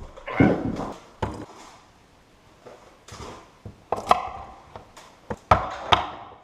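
Knife chopping through a hard raw carrot on a cutting board. There are several sharp, irregular chops with short pauses between them, and a quick cluster of strikes near the end.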